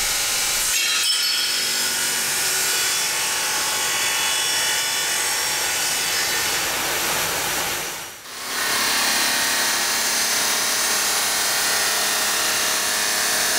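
CNC bridge saw's 16-inch diamond porcelain blade wet-cutting a 2 cm porcelain slab: a steady, high grinding hiss that dips briefly about eight seconds in, then carries on.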